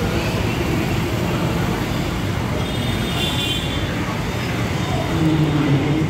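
Steady noise of road traffic and running engines, with a brief high tone about three seconds in.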